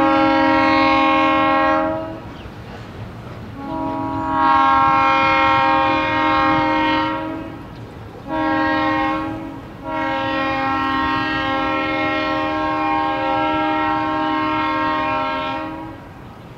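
A Portland & Western locomotive's multi-note air horn sounds four blasts: a long one ending about two seconds in, another long one, a short one, then a long one held about six seconds. This is the long-long-short-long signal a train sounds when approaching a road crossing.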